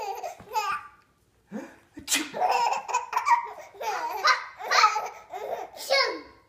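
A baby laughing hard in repeated high-pitched bursts, with a short pause about a second in and then a long unbroken run of laughter.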